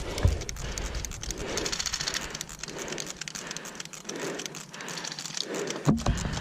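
Footsteps of a player walking, about one step a second, with light clicks and rattles of carried gear and one sharper knock near the end.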